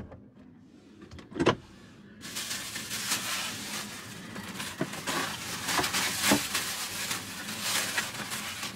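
A single sharp click, then from about two seconds in a thin plastic takeout bag rustling and crinkling steadily as it is handled and opened.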